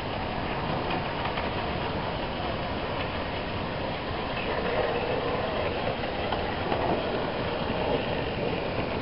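An OO gauge model train running on the track, growing louder from about halfway through as it approaches.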